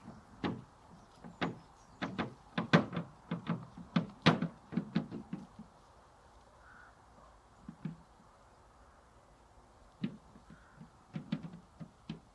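Irregular wooden-sounding knocks and taps. A dense run fills the first half, and a few scattered ones come near the end.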